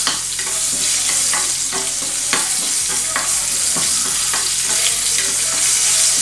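Chopped green chillies frying in hot oil in a small steel pan, a steady loud sizzle, with a spoon stirring and scraping against the pan in repeated short strokes about twice a second.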